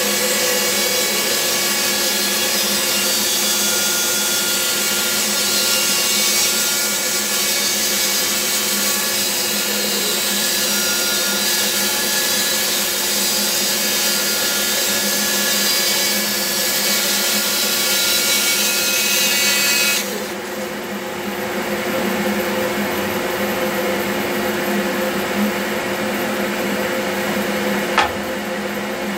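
Bandsaw with a wide blade ripping a long straight cut through a thick block of wood: a steady motor hum under the loud hiss of the blade in the wood. About twenty seconds in the cutting hiss stops suddenly and the saw runs on with only its hum, and a single knock comes near the end.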